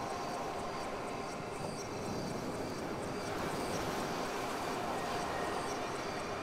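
Synthesizer ambient texture: a wash of noise that swells and ebbs like surf, under a few steady held tones and a quick, even high ticking pattern.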